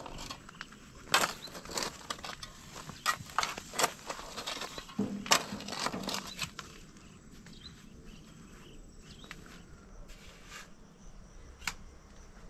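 Garden hoe and shovel digging into stony soil: irregular sharp strikes and scrapes for about the first six seconds, then it goes quieter, with one sharp click near the end.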